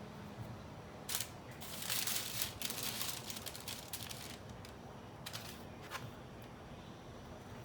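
Rustling and crinkling handling noise with a few sharp clicks: a click about a second in, a longer stretch of rustling from just under two seconds to past three, then a couple more short clicks.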